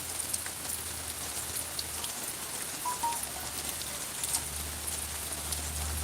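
Steady rain falling, with scattered drops ticking. A low steady hum comes in about four seconds in.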